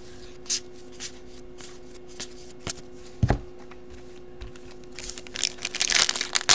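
Sports trading cards being flipped and slid past one another in the hands, with scattered light flicks and snaps. Near the end, a denser crinkling as a foil card pack is worked open.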